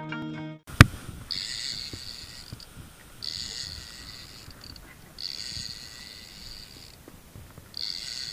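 Fishing reel whirring in repeated spells of a second or two with short gaps, over a low rumble of wind and water. A single sharp click near the start is the loudest sound, and plucked-string music cuts off just before it.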